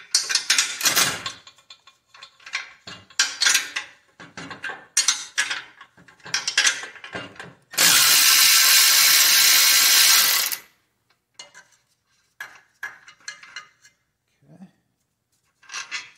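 Milwaukee M12 cordless electric ratchet driving an exhaust flange bolt on a catalytic converter, first in many short spurts, then in one steady run of about three seconds. A few light metallic clicks follow near the end.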